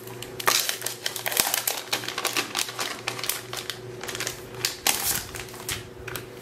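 Crinkling and rustling of paper and plastic packaging being handled, with many quick crackles and taps throughout, as stationery notebooks are taken out and looked over.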